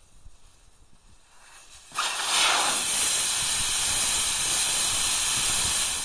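Air rushing out of a 14.00x20 M923 truck tire through the open valve stem once the valve core is pulled. A loud, steady hiss starts suddenly about two seconds in as the tire deflates, and cuts off near the end.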